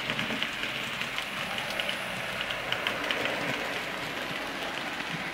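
Model railway train, a Prairie tank locomotive with its wagons, running along the track. It makes a steady rolling rush dotted with frequent small irregular clicks as the wheels pass over rail joints and points.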